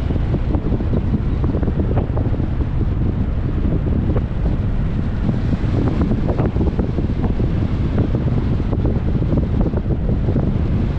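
Wind buffeting the microphone over the steady low road rumble of a 2021 Jeep Compass driving at speed, with a few faint ticks.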